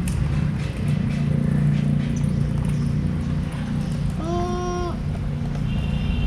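Steady low rumble of passing road traffic, with one short, steady pitched tone about four seconds in.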